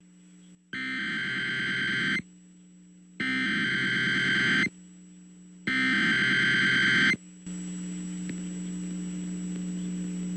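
Emergency Alert System SAME header: three bursts of harsh digital data tones, each about a second and a half long with about a second between them, marking the start of an alert. A steady low hum runs under the bursts and continues after the third, with no attention tone following.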